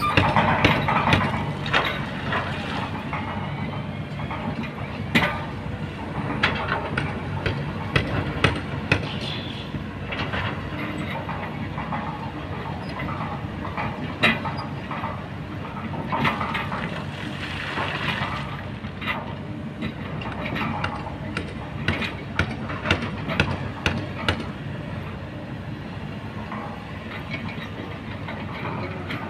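Kobelco crawler excavator's diesel engine running with a steady low drone as its bucket digs and scrapes through river stones, with frequent sharp knocks and clatters of rock.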